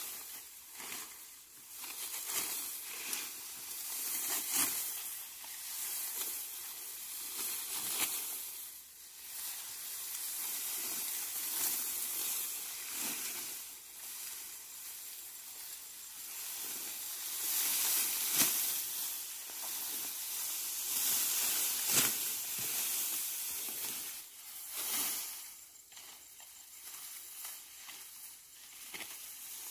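Dry upland rice plants rustling and crackling in irregular surges as they are handled during a hand harvest.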